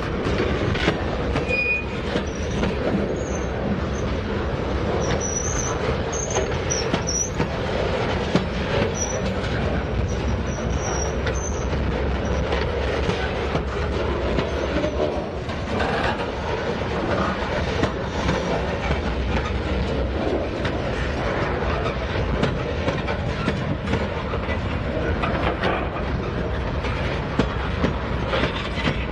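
Freight cars rolling steadily past, their wheels clacking over rail joints, with thin high wheel squeal coming and going during roughly the first ten seconds.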